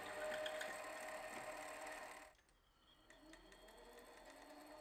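Small metal lathe running, with a twist drill boring into a spinning copper billet: a steady motor and gear whine with a light ticking. It cuts off abruptly a little over two seconds in and returns fainter.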